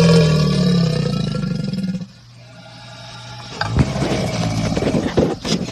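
Alligator growling: a long, pitched growl for about two seconds, then after a short lull a rougher, pulsing growl that stops just before the end.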